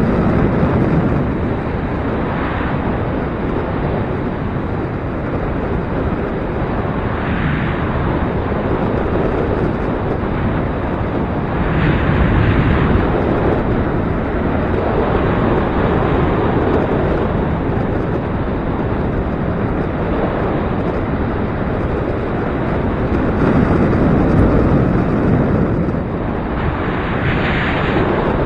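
Gusty wind buffeting the microphone: a loud, steady rush that swells in gusts a few times.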